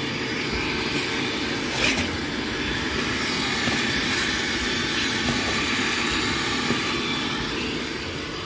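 Shop vac running, its hose sucking along car floor carpet: a steady rush of air with a constant motor whine, and a few brief clicks about one and two seconds in.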